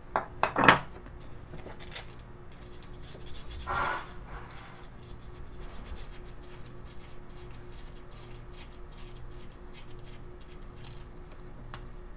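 A few sharp clacks in the first second as a carving knife is handled and set down on the wooden workbench. Then sandpaper rubs along a thin basswood dowel in light, scratchy strokes.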